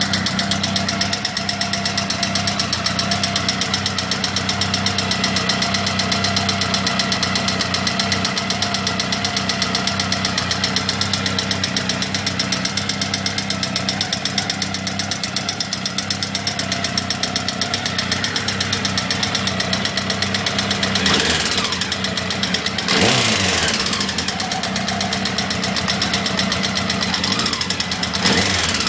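Honda CBR1000F SC21 inline-four engine idling with a fast, even mechanical rattle. A couple of short throttle blips come near the end. The owner takes the rattle for a faulty chain tensioner, either the cam chain's or the alternator drive chain's, the cam chain itself being sound.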